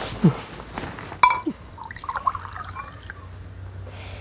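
A glass jug clinks against a ceramic mug, then tea is poured from the jug into the mug.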